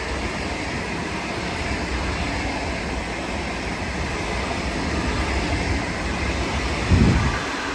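A train passing on the line, its wheels on the rails making a steady rolling noise, with a short low thump about seven seconds in.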